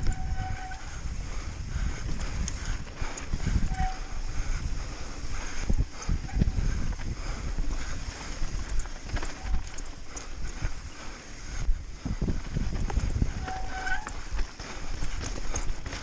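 Mountain bike ridden fast downhill over rough trail, the frame and wheels rattling and thudding over rocks in an irregular clatter, with wind noise on the microphone.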